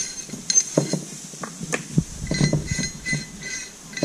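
Small metallic clicks and clinks of steel nuts being spun off the studs of an aluminium wheel spacer by hand and set down on a workbench, a few with a brief ringing ting.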